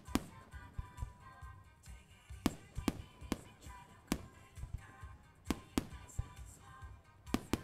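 Aerial fireworks going off: about ten sharp bangs at irregular intervals, over music playing in the background.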